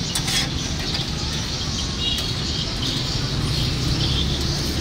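Butter sizzling on a flat steel griddle under a stack of toasting bread, with a few metal spatula clicks and scrapes shortly after the start, over a steady low rumble of street background noise.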